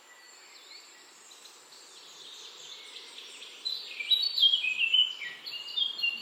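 Wild birds chirping over a steady background hiss. About three and a half seconds in, a close bird breaks into a loud song of quick, stepped, descending notes that runs on to the end.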